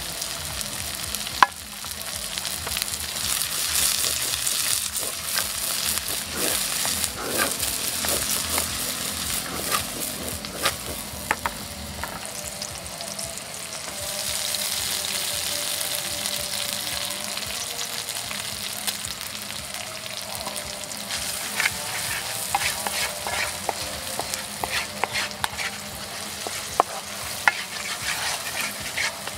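Sliced red chillies sizzling in hot oil in a metal wok, stirred and scraped with a wooden spatula. Short knocks of the spatula against the pan, coming more often near the end.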